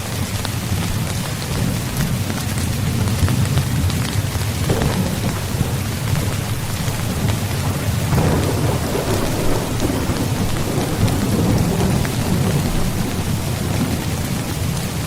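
Steady rain falling, with a low rolling rumble of thunder underneath that swells about a third of the way in and again just past halfway.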